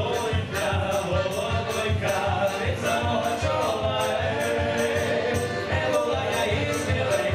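Live Ukrainian band music: several voices singing together over guitars and upright bass, with a steady, quick beat.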